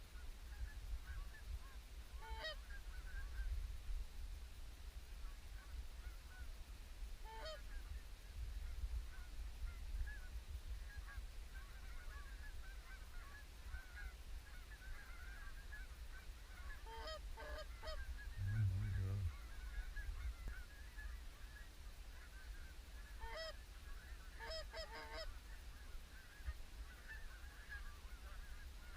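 Canada geese honking in short bouts several times, with fainter calls scattered in between. A low wind rumble runs under them, and there is a dull thump a little after halfway.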